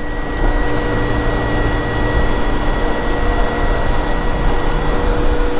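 Steady workshop machine noise, a loud rushing hum with a few constant tones; the highest tone stops near the end.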